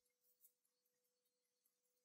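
Near silence: faint room tone with a steady low hum, and one tiny tick about half a second in.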